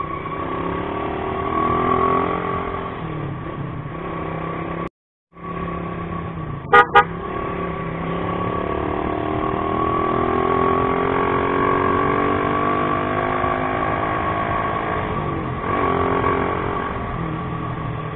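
A motorcycle engine runs through traffic, its pitch rising and falling as it accelerates and eases off, with traffic noise around it. The sound cuts out to silence briefly about five seconds in. Just before seven seconds there are two short beeps of a vehicle horn.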